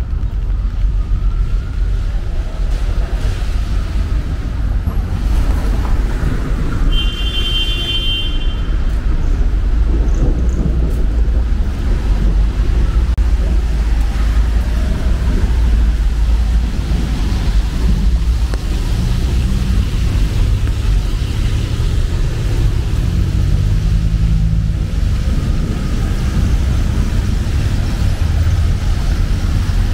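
City street traffic: a steady low rumble of passing cars, with a brief high-pitched tone about seven seconds in.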